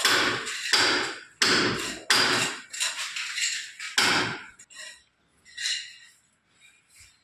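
A hammer striking while a door frame is fixed into its wall opening: about six sharp blows, roughly one every two-thirds of a second, over the first four seconds, then a single fainter knock a little later.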